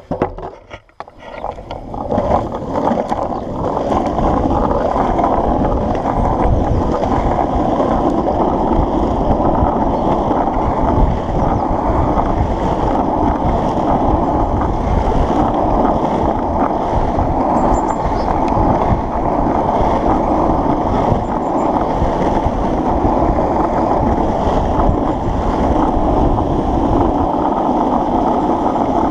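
Longboard wheels rolling on rough asphalt, a loud, steady rumble heard close up from a camera mounted on the deck. A sharp knock at the very start as the board is set down on the road.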